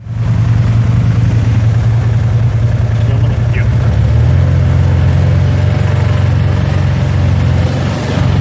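Can-Am Maverick side-by-side engine running steadily at low speed, heard close from the vehicle, with a slight change in its note about four seconds in.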